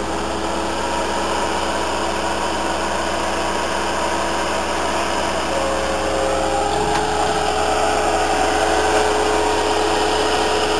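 Bobcat 873 skid steer's diesel engine idling steadily just after a restart, showing it starts right up. Its pitch steps up slightly about seven seconds in.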